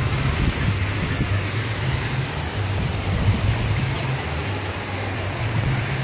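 Steady rushing noise with a low bass line of background music underneath it.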